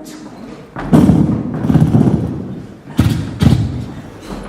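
A person's mouth-made explosion sound effects: three booming blasts, the first about a second in and trailing off longest, the other two close together near three seconds in.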